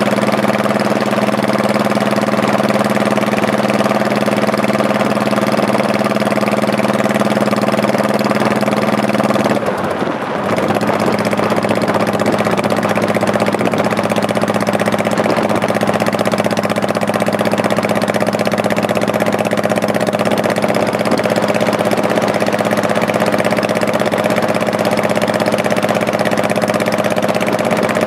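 Honda Shadow Spirit's 1100cc V-twin engine running steadily while riding, with a brief dip in the engine sound about ten seconds in, like a gear change, before it settles back to a steady run.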